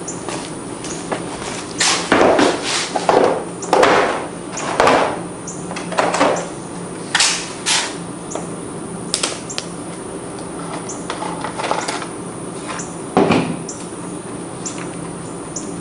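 Irregular plastic clacks, knocks and scrapes as the air cleaner cover is pried loose with a screwdriver and handled on a Briggs & Stratton lawn mower engine, busiest a couple of seconds in and with one sharp knock near the end. A steady low hum runs underneath.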